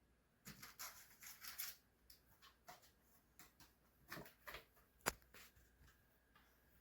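Faint scratching and rubbing noises in short bursts, with one sharp click about five seconds in.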